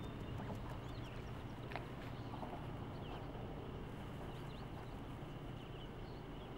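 Outdoor ambience: a few small birds chirping now and then, short high chirps over a steady low hum.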